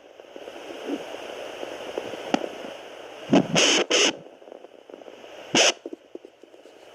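Contec pocket fetal doppler's speaker hissing with static as the probe searches for the mother's own heartbeat, broken by a few loud, uneven whooshes about three and a half, four and five and a half seconds in.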